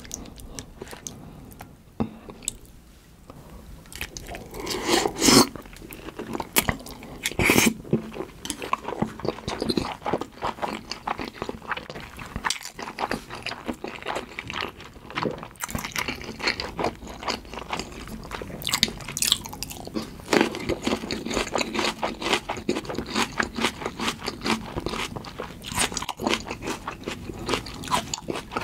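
Close-miked mouth chewing a big double mouthful of salmon nigiri sushi with tartar sauce: a dense, rapid run of small clicks and mouth sounds, with a few louder bites in the first eight seconds.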